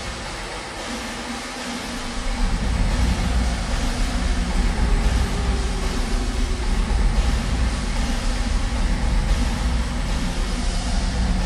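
Metal lathe running with its chuck spinning: a steady machine hum over a deep rumble. The rumble thins at first and comes back about two seconds in.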